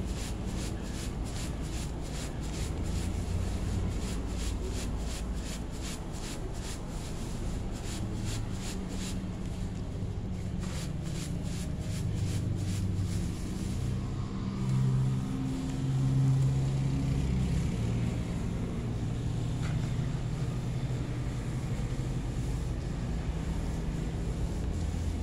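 A plastic colander of winged termites being shaken to sift off their loose wings: a quick rustling rattle about three times a second for the first half, stopping about halfway through. A steady low rumble runs underneath throughout.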